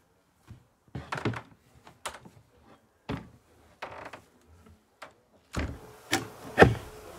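Knocks and thumps from a wooden horizontal beehive being handled and set down on its metal stand, irregular at first, with the loudest knocks near the end.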